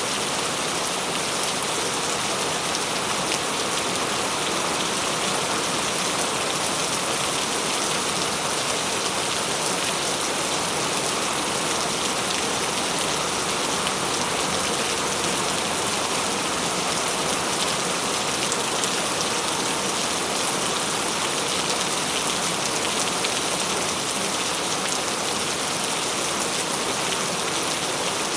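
Heavy rain falling steadily, a dense even hiss of drops on a surface with no let-up.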